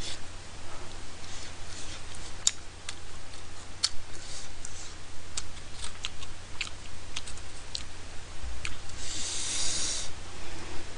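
Mouth sounds of someone eating tteokbokki rice cakes: scattered clicks of chewing, with a short hissing noise near the end.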